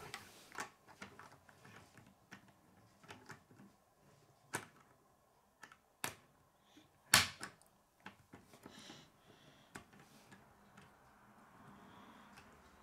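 Plastic K'nex pieces clicking and knocking against a wooden table as they are pressed into place, a handful of sharp clicks spaced irregularly, the loudest about seven seconds in.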